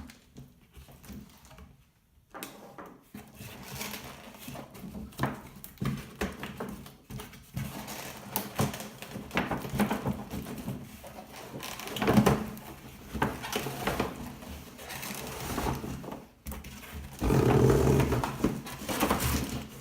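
Cardboard packaging being handled and opened: irregular rustling, knocks and scraping of the box and inserts. A louder, steady scraping starts about 17 seconds in and lasts about two seconds.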